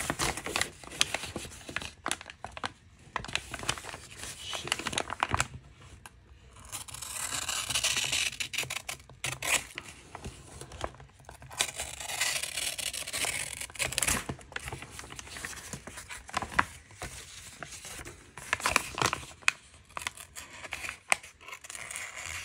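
A small hand-ground Magnacut knife blade slicing through printer paper in several strokes, the paper hissing and tearing as it is cut, with crinkling as the sheet is handled. It is a paper-cutting sharpness test, and the blade comes across as sharp but not razor sharp.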